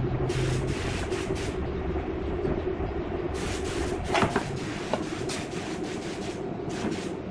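Stainless-steel tube pieces being handled and set down on a wooden workbench: bursts of clinks and scrapes over a steady low hum.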